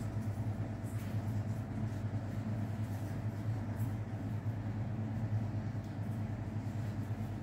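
A steady low machine hum, even in level, with a few faint light ticks now and then.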